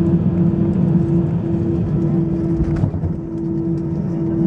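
Airbus A320 engine and airflow noise heard inside the passenger cabin: a steady low rumble with a constant hum running through it.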